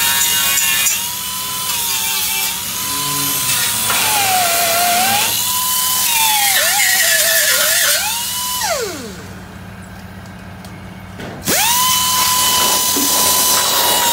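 Handheld grinder with a wire cup brush, whining at high speed and scrubbing steel, its pitch sagging as it is pressed into the work. About nine seconds in it spins down to a stop, and a couple of seconds later it starts again with a rising whine.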